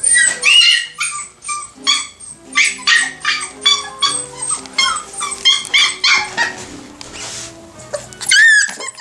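Young Nova Scotia Duck Tolling Retriever puppies yipping and whining in quick, high-pitched calls, several a second, with a longer wavering call near the end. Background music plays underneath.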